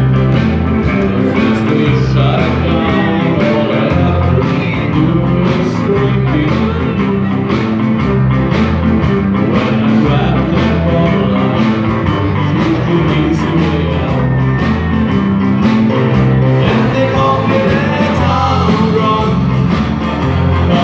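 A band playing rock and roll live, with singing over a steady beat.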